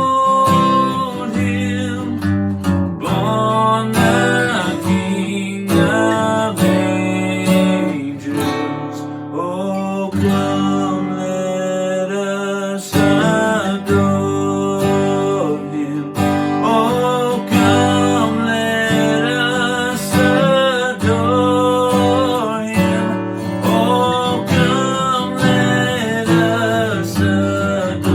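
Acoustic guitar strummed and picked in a slow, rootsy holiday song, with a bending melody line carried over the chords.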